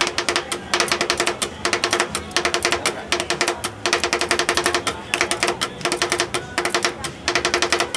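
Two metal spatulas chopping and tapping on the steel cold plate of a Thai rolled ice cream machine. A rapid clatter of clicks comes in runs of about a second, with brief pauses between them.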